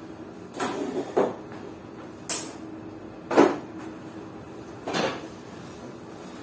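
A broom sweeping a wooden floor: five or six short strokes and knocks, the loudest about three and a half seconds in.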